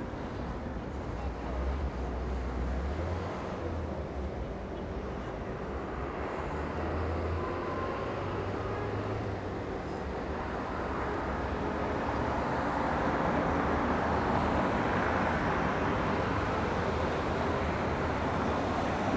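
City street traffic: motor vehicles running past with a low engine rumble in the first half, then a steady traffic noise that swells slightly in the second half.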